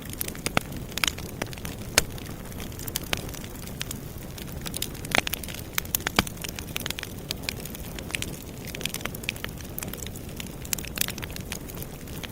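Campfire burning, with a steady low rush of flames and irregular crackles and sharp pops of burning wood, a few louder pops scattered through.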